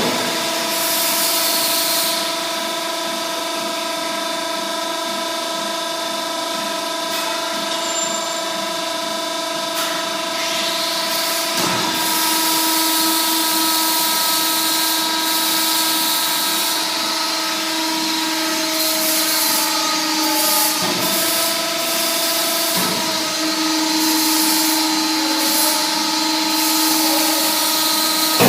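Hydraulic clothing baler running: a steady whine with several held tones over a constant hiss, broken by a few short knocks.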